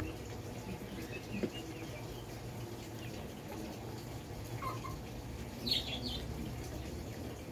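Soft mouth sounds of someone eating ripe durian flesh by hand, chewing and sucking it off the fingers, over a low steady hum. A brief high-pitched chirp comes a little before six seconds in.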